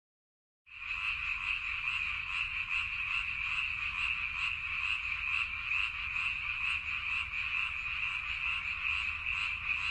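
A toad calling: one long, steady, high-pitched trill that starts just under a second in and does not break.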